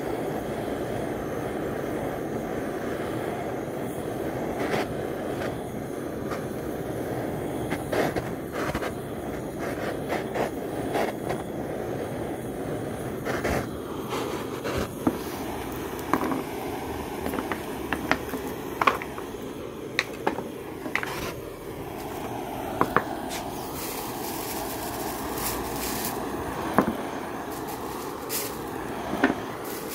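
Handheld gas torch flame running with a steady rushing noise while scorching wooden log-slice coasters, with sharp wooden clacks from the slices being knocked and shifted on the board, many of them from about the middle on.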